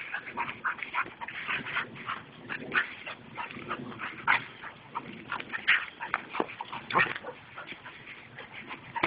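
Dog play-fighting, giving a rapid, irregular string of short mock-aggressive vocal sounds.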